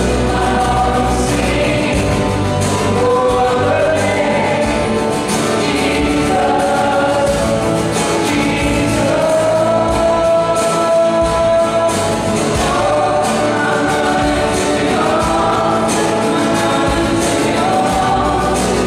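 Live worship band playing a Christian song: male and female voices singing together over acoustic guitars, electric guitar, electric bass and drums.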